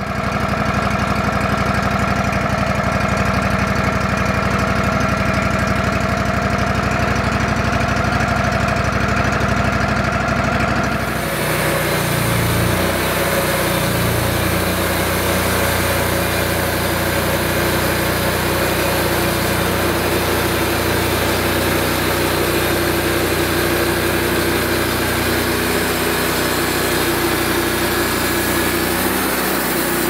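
Wood-Mizer LX150 band sawmill's engine running steadily as the power feed drives the saw head forward. About eleven seconds in, the band blade enters the red pine log: a steady hissing cutting noise joins in and the engine note changes as it takes up the load.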